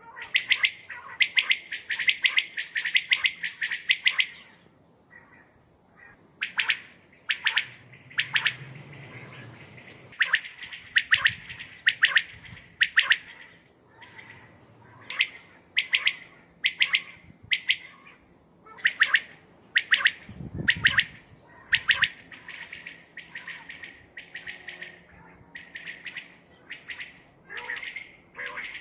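Common quail calling over and over: a fast run of sharp, high notes for the first few seconds, then groups of two or three notes with short pauses between them.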